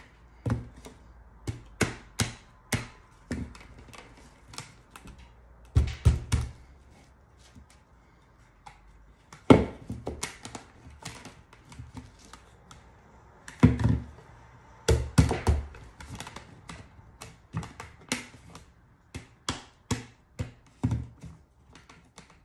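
Frame sides being dry-fitted by hand around a square sign board, knocking and tapping against the board and tabletop: an irregular string of sharp taps, with louder clusters of knocks about six, ten, fourteen and fifteen seconds in.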